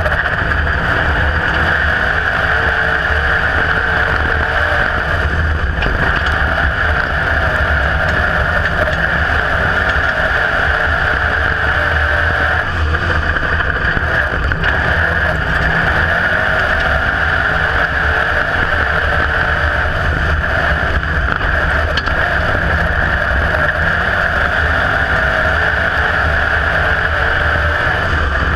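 IMCA Modified dirt-track race car's V8 engine running hard and steadily under racing load, heard loud from an onboard camera inside the car.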